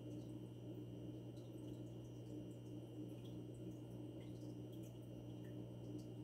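Aquarium filter running: a faint steady low hum with light scattered drips and ticks of water.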